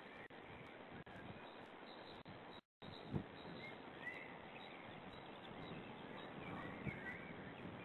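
Faint outdoor ambience: a steady hiss with a few faint bird chirps, a cluster about halfway through and another near the end. The sound cuts out for a moment before the middle, and a single soft knock follows.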